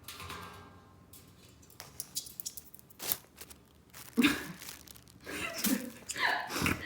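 Light clicks and crinkly rustling, then from about four seconds in a parrot's short chattering vocalisations in bursts.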